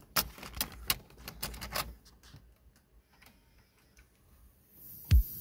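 Plastic clicks and clatter of a cassette tape being pushed into a car stereo's tape deck and loading, a quick run of clicks over the first two seconds, then a few faint ticks. Music starts near the end, a heavy low beat first.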